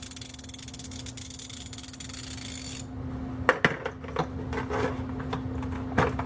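A 160-tooth Steelman Pro Cobra fine-tooth ratchet being turned, its pawl giving a fast, fine clicking buzz that stops about three seconds in. After that come a few separate knocks and metal clinks of tools being handled.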